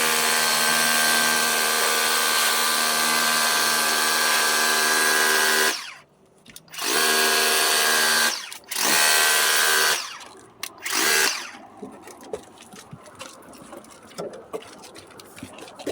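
Kobalt 40-volt handheld power cleaner's electric pump motor running with a steady whine and a hiss of spray for about six seconds. It then stops and starts in three shorter runs, the last one brief.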